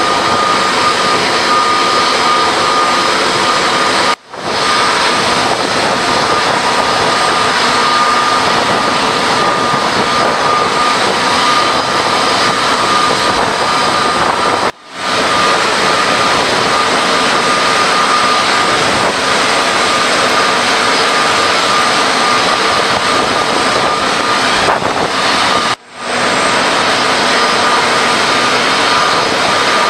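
Airbus A310 jet engines running as the airliner taxis: a loud, steady rush with a high whine held throughout. The sound drops out briefly three times where the recording is cut.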